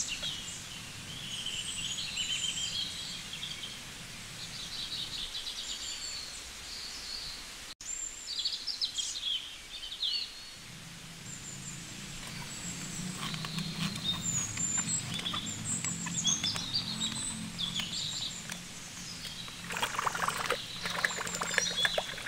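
Birds chirping and twittering in a natural ambience, over a faint low hum. Near the end, water splashes as a plastic toy is set down in a tub.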